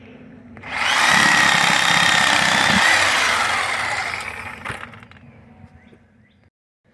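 Power saw cutting into a wooden railroad tie: a loud, harsh cut lasting about four seconds that then dies away.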